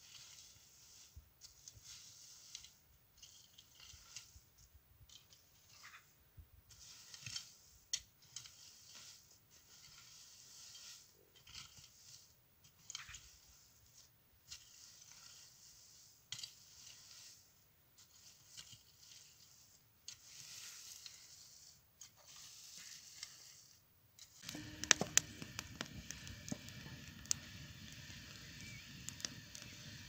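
A garden rake dragged through dry leaves and loose soil in repeated scraping, rustling strokes, about one a second. About 24 s in, a wood fire takes over, crackling steadily with several sharp pops.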